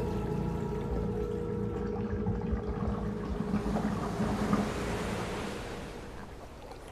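Toilet flushing: water rushing and swirling in the bowl over a steady hum, fading out near the end.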